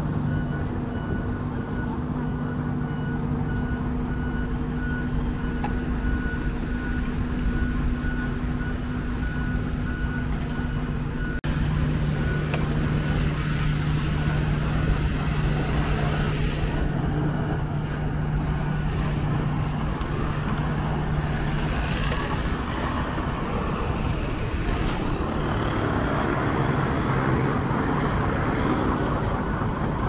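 Diesel engines of road-paving machinery, a dump truck and an asphalt paver, running with a steady drone. A backup alarm beeps over it at an even pace until about eleven seconds in, when the beeping stops and the engine sound grows louder.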